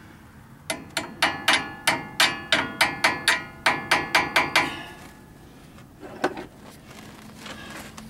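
Hammer blows driving out the caliper retaining pin of a 1977 Ford F250 front disc brake: a quick run of about fifteen ringing metal strikes, about four a second, then one more strike a little later.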